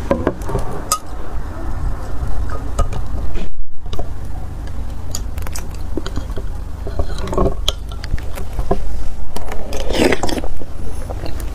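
Metal spoon clinking and scraping against a glass mug as a block of ice is lifted out of dark liquid. Near the end, ice taken from the spoon is bitten into and crunched. A steady low rumble runs underneath.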